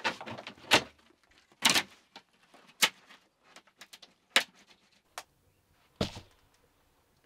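Knocks and clatters of a thin plywood sheet being handled and moved about: half a dozen sharp knocks a second or so apart, with lighter rattles between.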